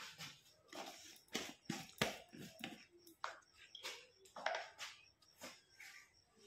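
Faint, irregular light taps and clicks, a dozen or so scattered through a few seconds.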